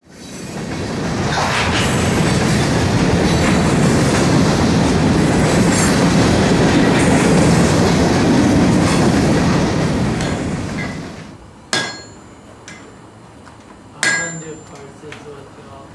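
A passing train rumbles steadily, then fades away about eleven seconds in. It is followed by two sharp hammer strikes ringing on metal, about two seconds apart.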